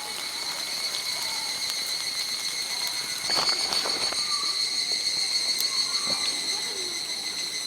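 Wood campfire crackling with scattered sharp pops, under a steady high-pitched chorus of summer insects. The sound gets louder and noisier for a moment a little over three seconds in.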